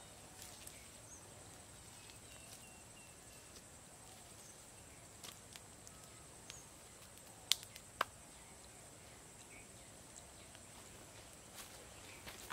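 Quiet outdoor ambience: a steady high insect hum with a few faint bird chirps, scattered small ticks, and two sharp snaps about half a second apart a little past the middle.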